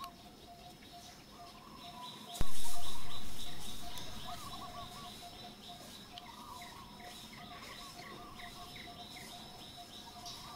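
Birds chirping and trilling repeatedly over a steady faint drone, with a sudden loud thump about two seconds in that fades away over about two seconds.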